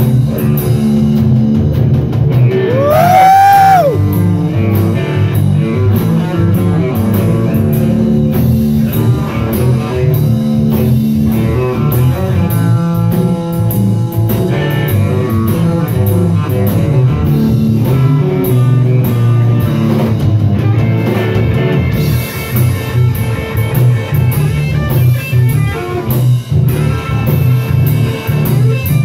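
Live blues band playing: electric guitars, bass and drum kit, with a high note that bends up and back down about three seconds in.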